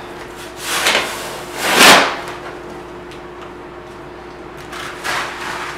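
A shovel scooping damp dry-pack sand-and-cement mortar out of a mortar tub and dumping it onto the shower pan liner. Gritty scrapes come about a second in, the loudest just before two seconds, and another near five seconds.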